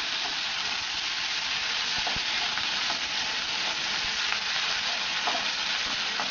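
Small onions (shallots), garlic and curry leaves sizzling in hot oil in a kadai, stirred with a spatula that scrapes and knocks against the pan now and then. A steady frying hiss.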